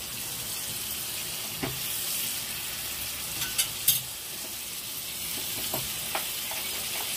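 Butter melting and sizzling in a small metal tadka pan over a low gas flame: a steady fine hiss, with a few sharp clicks about a second and a half in and again near four seconds.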